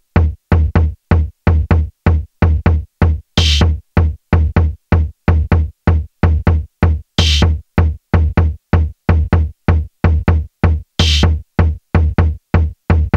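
Electronic dance music with a heavy drum-machine kick beat, several strokes a second, and a bright cymbal crash about every four seconds, three times in all.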